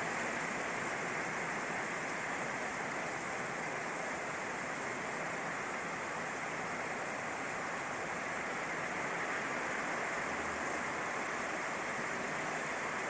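Heavy rain falling in a steady downpour, an even hiss with no breaks.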